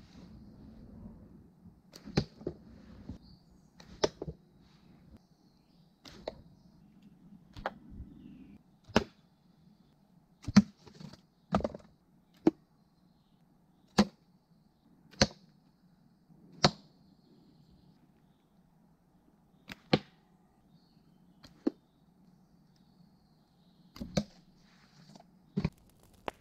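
Homemade darts striking a board target one after another, about twenty sharp hits spaced one to two seconds apart, with a pause of about three seconds after the middle.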